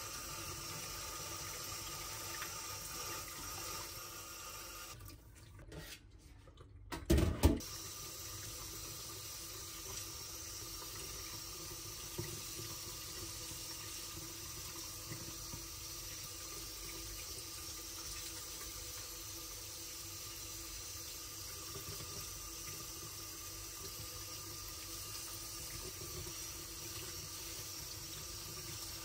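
Water running steadily from a tap into a sink. It drops away briefly about five seconds in, then a single loud thump comes about seven seconds in before the water runs on.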